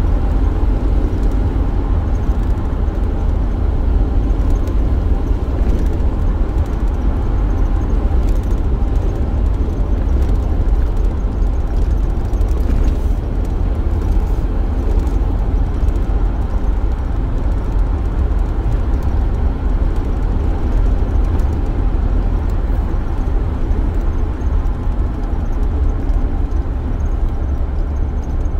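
Steady road and engine rumble of a van being driven, heard from inside the cabin.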